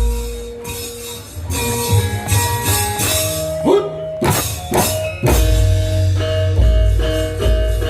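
Live instrumental music from the wayang kulit accompaniment ensemble. Drum strokes, a few of them falling in pitch around the middle, play over ringing pitched notes, with deep bass hits in the second half.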